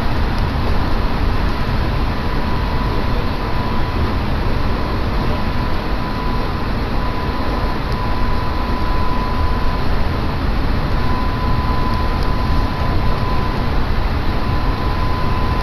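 Electric train running at speed, heard from inside the carriage: a steady rumble of wheels on track with a thin high whine over it.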